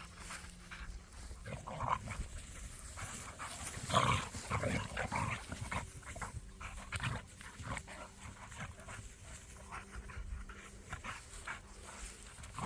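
Kangal dogs at rough play, making short irregular panting and vocal sounds, loudest around four to five seconds in.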